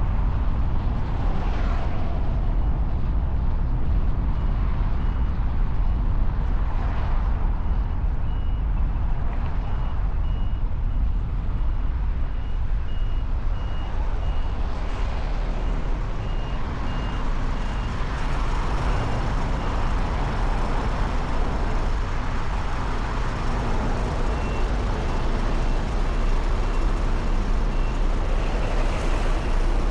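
Steady city road traffic noise with a deep rumble of engines and tyres. A short, high beep repeats steadily through much of it, stopping for several seconds after the middle and then coming back.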